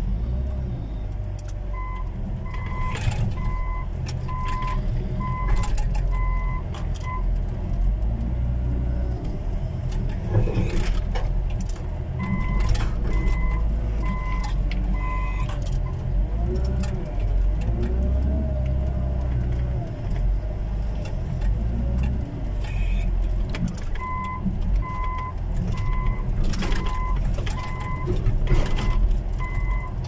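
Heavy earth-moving machine's engine running steadily, heard from inside its cab, with a reversing alarm beeping about one and a half times a second in three spells as the machine backs up. Clanks and knocks come and go throughout.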